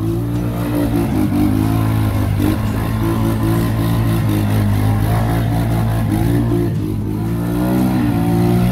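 Off-road vehicle engine running steadily under load.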